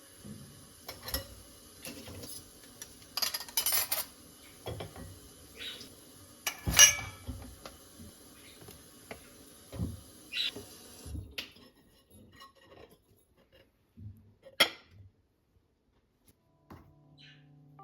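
Kitchenware being handled: a string of clinks and clatters of dishes and utensils, the loudest about seven seconds in. A faint steady hiss under them stops about eleven seconds in, and only a few scattered knocks follow.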